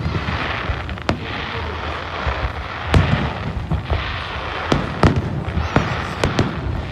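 Aerial fireworks: sharp bangs of shells bursting every second or so over a steady crackling hiss.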